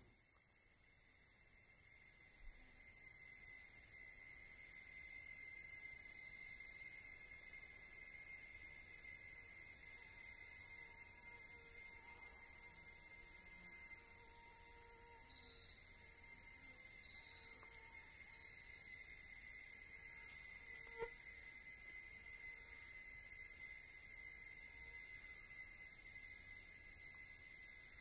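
A steady, high-pitched, shrill drone like an insect chorus of crickets, fading in over the first few seconds and then holding unchanged.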